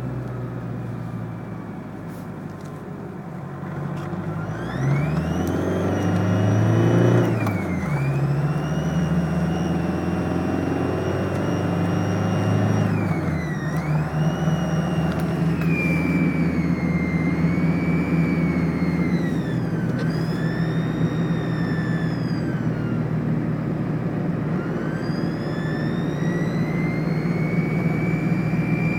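1998 Volkswagen Jetta 1.9 TDI four-cylinder turbodiesel running with the revs rising and falling, over it a high whistle that climbs and drops with the revs several times. It is the weird noise the owner suspects could be an exhaust leak, a boost leak or a failing turbo.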